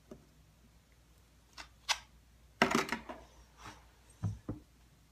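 Handling noise: a string of irregular clicks and taps from objects being picked up and moved, the loudest cluster a little past the middle, then two low knocks.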